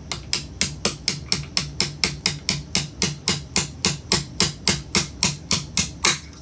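Small hammer tapping a punch in quick, even strikes, about four a second, to drive out the trigger-group retaining pin of a Citadel ATA12 12-gauge shotgun.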